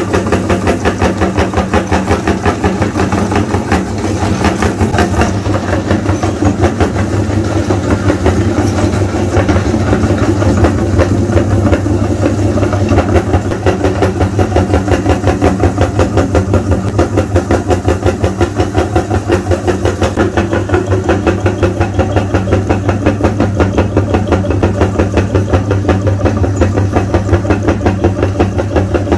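Electric meat grinder running steadily, its motor humming under a fast, even rattle as it crushes sticks of chalk into powder.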